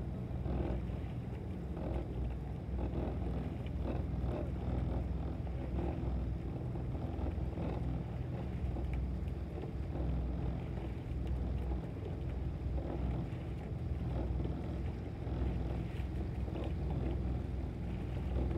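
Motorboat engine running steadily with a low hum, with wind on the microphone.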